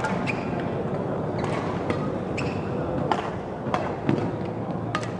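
Badminton rally: a string of sharp, short racket strikes on the shuttlecock and shoe noises on the court, irregularly spaced about half a second to a second apart, over steady background noise.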